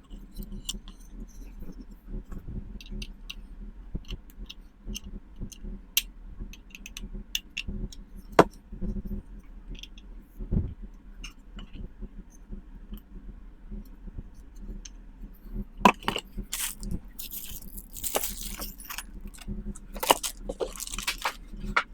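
Scattered light clicks and knocks of small hard objects being handled, with several louder scraping or rustling bursts in the last few seconds.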